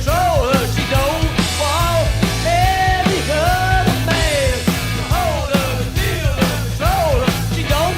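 Rock band playing an instrumental break, a lead line of bending, sliding notes over steady bass and drums.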